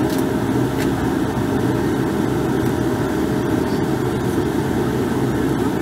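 Bombardier Q400 turboprop engine and propeller at taxi power, heard from inside the cabin: a steady drone with a faint steady hum over it.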